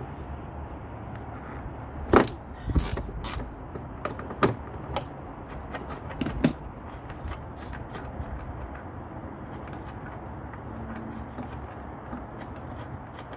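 Hand tools on metal as a 13 mm nut is taken off with a socket wrench: several sharp metal clinks and knocks in the first half, the loudest about two seconds in, then a run of faint quick clicks.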